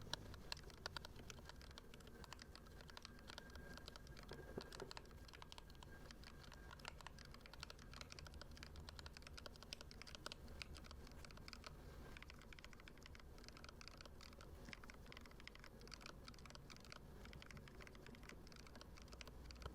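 Typing on a tape-modded Redragon Kumara mechanical keyboard fitted with Akko CS Jelly Black 50 gf linear switches and lubed stabilizers: a steady stream of quick, soft key presses.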